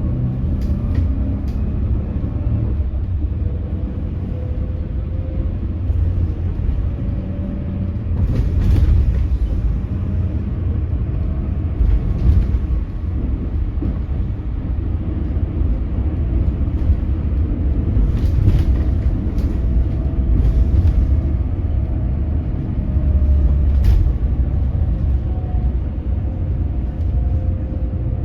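Hydrogen fuel-cell city bus on the move, heard from inside: a steady low road rumble with a faint electric-motor whine that slowly rises and falls in pitch, which the uploader calls a strange sound from the motor. A few short knocks or rattles come through, about four times.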